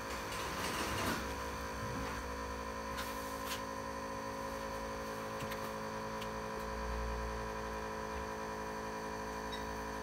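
Small electric water pump humming steadily as it pushes water into the radiator's closed circuit, with a couple of faint clicks about three seconds in.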